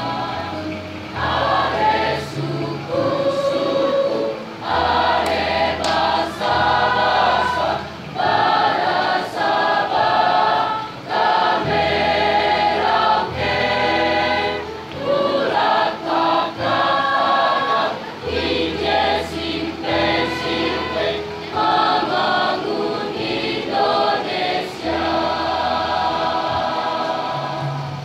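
Mixed choir of teenage boys and girls singing a song in phrases separated by short pauses.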